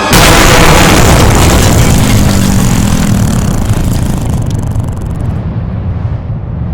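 A sudden loud blast that starts abruptly and rumbles away, fading slowly over several seconds as the hiss drops out and a low rumble lingers.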